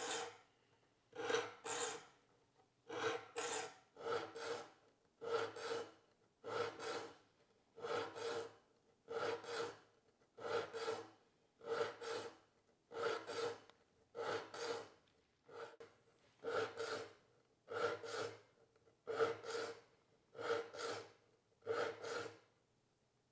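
A file rasping across the teeth of a small rip-tooth dovetail saw, one forward and one back stroke on each tooth, then moving on to the next tooth, a pair of strokes roughly every 1.3 seconds. Each tooth of the dull saw is being resharpened with light to moderate pressure.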